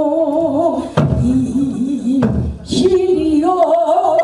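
An elderly woman singing pansori, holding long notes with a wide, slow vibrato. The singing is broken by two sharp knocks, about one and two seconds in.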